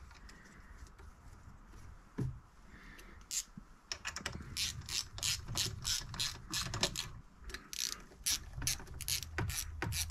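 Socket ratchet clicking as the bolts of a new outboard water pump housing are run down and tightened. It is faint at first, then from about four seconds in comes a run of sharp clicks, about three a second.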